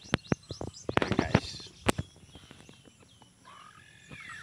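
Sharp clicks and knocks in the first two seconds, then birds calling with short whistled notes that slide down in pitch from about three and a half seconds in.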